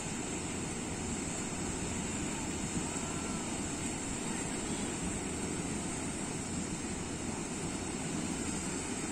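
Small waves breaking and washing up a sandy beach: a steady rushing noise, with wind rumbling on the microphone.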